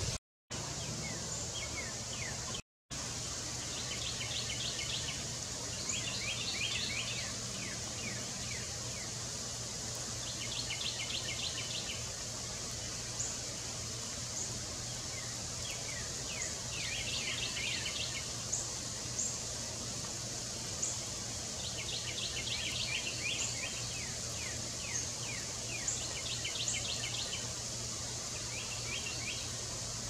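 Northern parula singing: a quick trill of rapid notes lasting about a second, repeated every few seconds, with faint high chips in between over a steady low hum.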